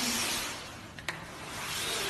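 A small dog's body sliding across a smooth floor as it is pulled along on a leash, giving a steady rubbing hiss, with one sharp click about a second in.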